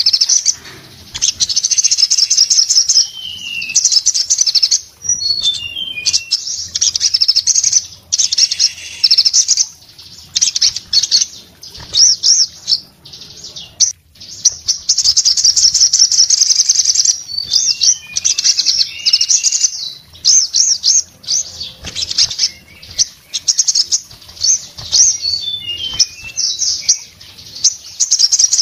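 Male olive-backed sunbird (sogon) singing in full voice: long runs of rapid, very high twittering broken by short pauses, with a few short falling note series between them.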